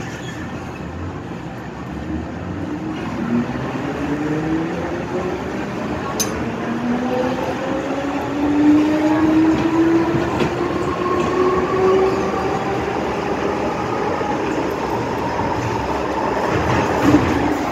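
MTR M-Train electric multiple unit accelerating away from a station, heard from inside the carriage: its traction motors give a whine of several tones that climb steadily in pitch over the running rumble, growing louder as it gathers speed.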